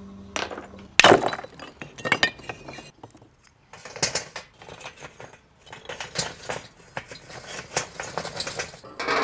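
Pieces of hard Kishu binchotan charcoal clinking and knocking together as they are handled and dropped into a metal chimney starter, with a loud crack about a second in.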